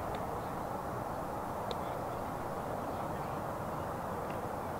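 Steady outdoor background noise, a low rumble and hiss with no clear source, and one faint tick about a second and a half in.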